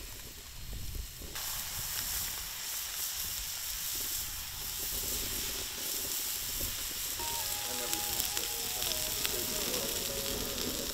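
Onions, green peppers and steak frying on a Blackstone flat-top griddle: a steady sizzle that jumps louder about a second in.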